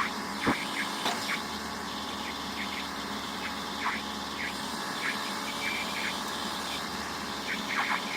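Excavator engine running steadily, with one sharp thump about half a second in and scattered short high chirps over it.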